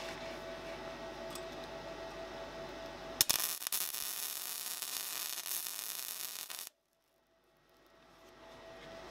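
Electric arc welding on steel: the arc strikes with a sharp crack about three seconds in, then crackles and hisses for about three and a half seconds before cutting off suddenly.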